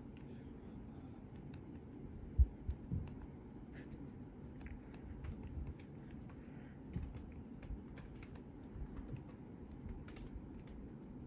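A kitten's light pawsteps and claw clicks on carpet and against a mirror: faint scattered ticks throughout, with a few soft thumps about two and a half to three seconds in.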